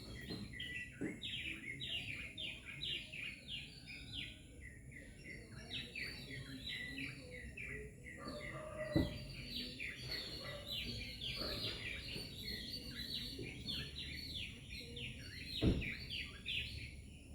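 A dense chorus of small birds chirping, many quick falling chirps overlapping at once. Two dull thumps break through, one about halfway and one near the end.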